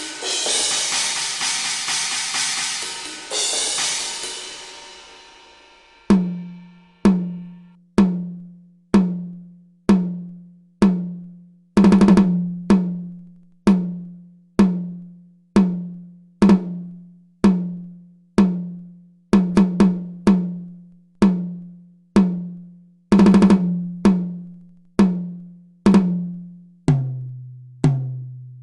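A cymbal crashes twice and rings out, then a drum is struck alone about once a second, each hit ringing at a steady pitch, with a few quick doubled strikes. Near the end a lower-pitched drum takes over.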